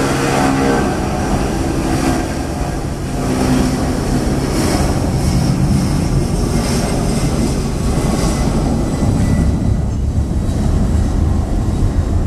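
Boeing 757-300 jet engines at takeoff thrust during the takeoff roll: a steady rushing jet noise with a low rumble that grows stronger in the last few seconds. A few steady hum tones at the start fade out after two or three seconds.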